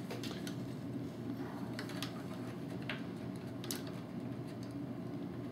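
Hard plastic toy parts clicking and tapping irregularly as small pieces are worked into place and hooked onto one another on a Transformers figure, over a steady low background hum.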